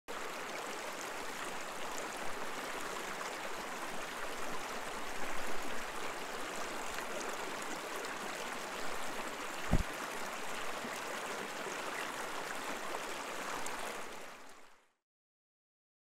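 Shallow creek running over rocks, a steady babble of flowing water, with one short low thump about ten seconds in. The water sound fades out to silence near the end.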